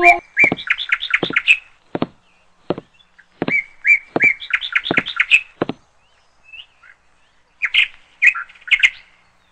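A bird chirping in three quick runs of short, high chirps, near the start, in the middle and near the end, with a few sharp clicks between them.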